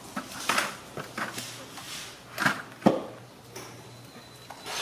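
A handful of sharp knocks and rattles from a metal-framed window screen being lifted off a window and handled, with the loudest knock about three seconds in.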